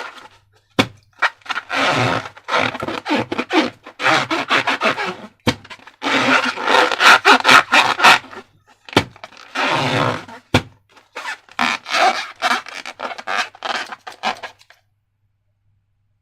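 Slime being squished and worked by hand, crackling and squelching in several bursts with a few sharp clicks between them, stopping about fifteen seconds in.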